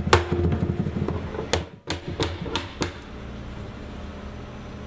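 A hammer striking a hoop driver against the steel hoop of an oak wine barrel, loosening the hoop so the head can come out. The first blow rings briefly with a metallic tone, then about five more sharp blows follow in a quick run of roughly three a second, stopping about three seconds in.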